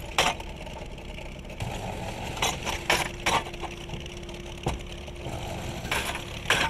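Clay brick-making machine running with a steady motor hum, while the hand-operated wire-cutting frame comes down with sharp metal clanks several times, in clusters near the start, around the middle and near the end.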